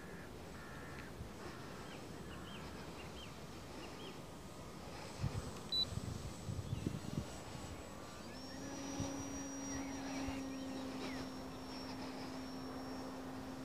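Stock electric motor and propeller of a Dynam Tiger Moth RC model biplane flying at a distance. A faint, steady drone with a high whine comes in about eight seconds in and holds, after a few soft thumps in the middle.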